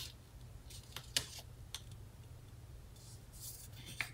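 Faint paper handling: a few light clicks and a brief soft rustle as fingers press a paper sticker down onto a sheet of paper, over a low steady hum.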